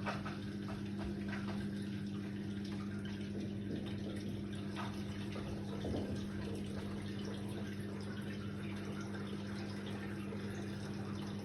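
Indesit WIDL 106 washer-dryer running a cycle: a steady hum with water trickling and splashing inside, and scattered light clicks.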